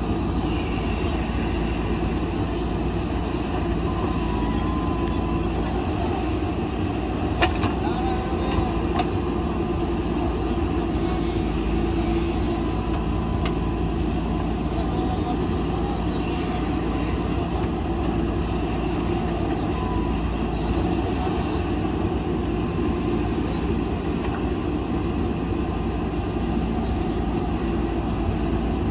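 Diesel engine of a JCB backhoe loader running steadily under load as its backhoe arm digs soil, with a few sharp metallic knocks about seven to nine seconds in.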